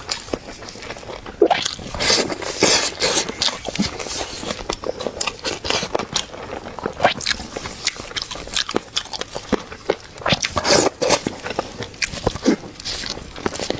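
Close-up chewing and biting into a chicken leg: irregular wet smacks and crunchy bites.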